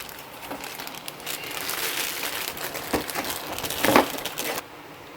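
Plastic packaging crinkling and rustling as it is handled, with sharp crackles and one louder snap near the end before it stops suddenly.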